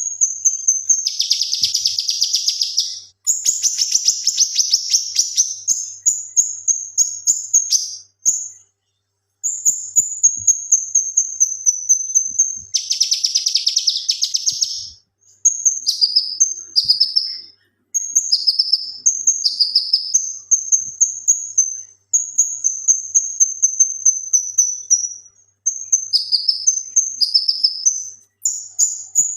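Male cucak kinoi singing vigorously: fast runs of high, sharp chips, broken by long, dense buzzy rattles near the start, around four seconds in and about halfway. Later the song turns to repeated high notes that each drop in pitch.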